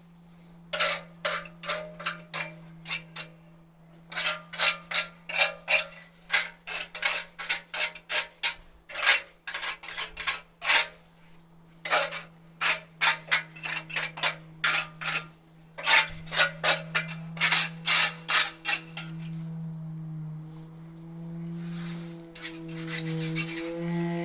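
Quick repeated scraping strokes of a hand tool on concrete, coming in runs of a few seconds with short pauses between. A steady engine hum runs underneath and rises in pitch near the end.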